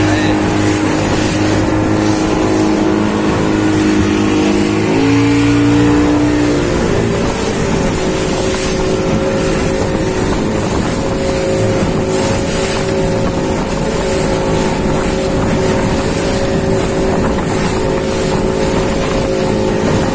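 Motorboat engine running under way, its pitch shifting about five seconds in and then holding steady, with water rushing along the hull.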